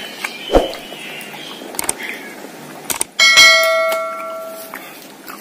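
A bright bell-like ding that starts suddenly a little past three seconds in, just after a click, and rings out over about a second and a half: the notification-bell sound effect of an edited-in subscribe-button animation. A sharp knock sounds about half a second in.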